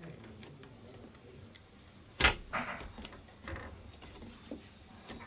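A few light clicks and knocks of hard objects being handled, with one sharp, loud knock about two seconds in.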